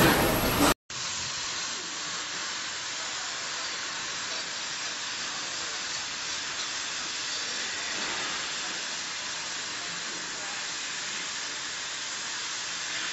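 Oxy-fuel cutting torch on a portable CNC flame-cutting machine, hissing steadily as its jet cuts through steel plate. The hiss starts about a second in, after louder workshop noise cuts off.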